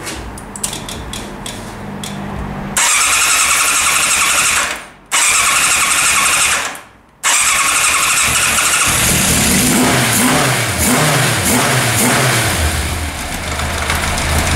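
Four-cylinder motorcycle engine with four carburettors being started on the button. After a few seconds of light ticking, two loud tries each cut off after about two seconds; then the engine catches, is revved a few times and settles to an idle. The starting follows the fixing of a fuel-hose fault that had starved it.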